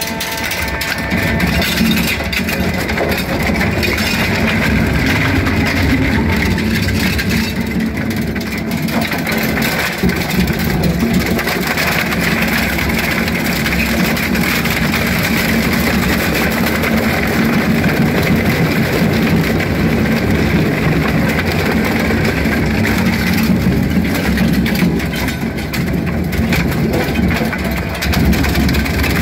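ARP EZ 100 single-shaft shredder running under load as its toothed rotor chews up a wooden pallet: a steady, loud machine drone with the wood cracking and splintering through it.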